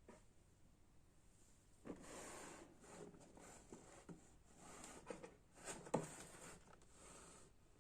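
Faint rustling and handling of packaging in uneven bursts, with a sharp knock about six seconds in.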